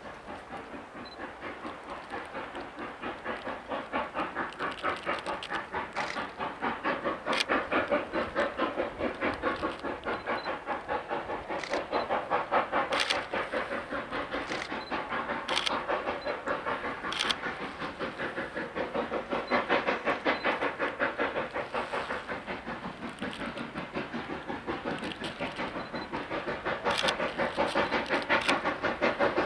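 Narrow-gauge steam locomotive chuffing as it pulls away, a steady beat of exhaust blasts about three a second that grows louder, with a few sharp clanks.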